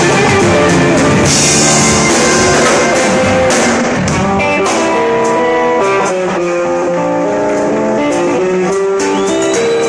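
Small instrumental rock band playing live: electric guitar, electric bass and drum kit together, with cymbals ringing about a second in. From about four seconds in the drumming gets sparser and held guitar notes stand out.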